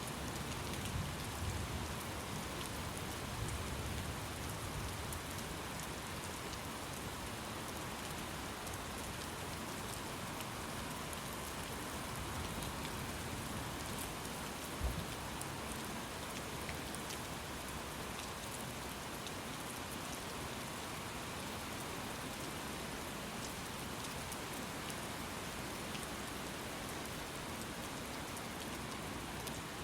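Steady rain falling, a dense even hiss of drops on surfaces. A low rumble of thunder sounds in the first few seconds, and there is one short thump about halfway through.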